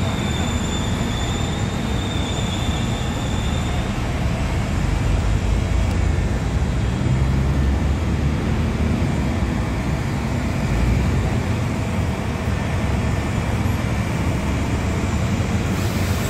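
Steady roar of airliner and bus engines on an airport apron, with a thin high whine during the first few seconds.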